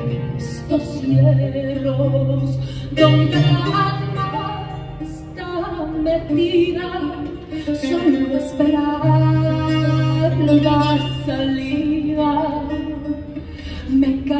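A woman singing a slow melody in an early-music style, accompanied by guitar and a frame drum, with a low held note that comes and goes.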